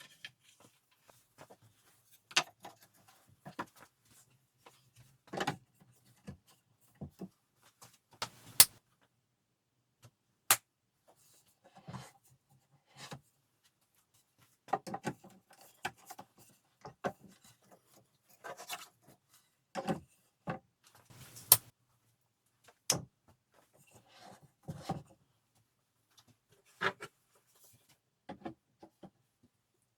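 Irregular workshop handling sounds: clicks, taps and brief rubbing of wooden and metal parts being moved and set down, with quiet gaps between and a few sharper knocks scattered through.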